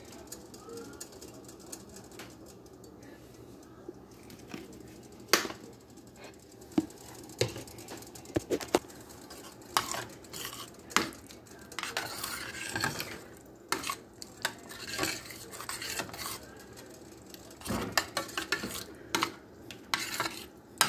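Slotted metal spoon stirring thick meat sauce in a stainless steel pan, scraping and clinking against the pan. After a quiet start, sharp knocks of the spoon on the pan come repeatedly from about five seconds in.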